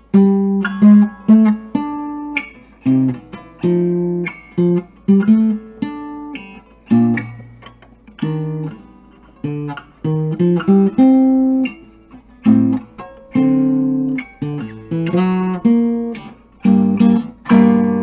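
A 1946 Epiphone Emperor acoustic archtop guitar played as a run of chords, each struck sharply and left to ring and fade before the next.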